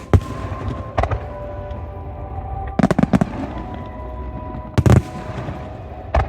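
Fireworks shells bursting in sharp bangs, one every second or two, with a quick run of three around three seconds in, over music played along with the display.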